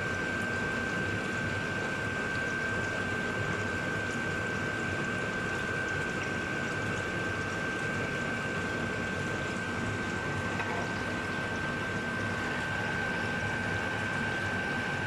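Saucepan of fish simmering in vinegar and water on a gas stove burner: a steady hiss with a thin, steady high whine running through it.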